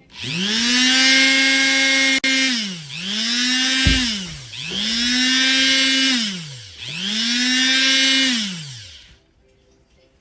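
Electric rotary tool motor switched on and off four times: each time it spins up to a steady high whine, holds for a second or two, then winds down. There is a short knock about four seconds in.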